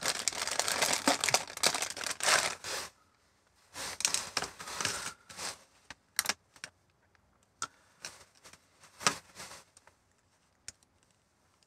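A thin plastic component bag crinkling as it is opened and a small diode taken out. Then, about three seconds in, come scattered light clicks and taps as multimeter probe tips are set against the diode's wire leads.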